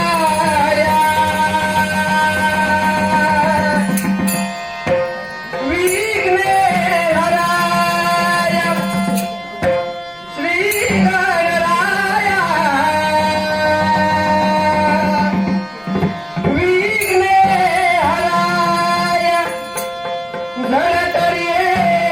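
Male singer singing a devotional Ganesh hymn in long, held, ornamented phrases, with short breaths between them, over a steady drone and hand-drum accompaniment.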